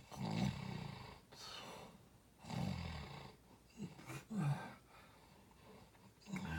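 Loud, rasping snoring: a string of irregular rough snores, each up to about a second long, with a couple of short snorts about four seconds in.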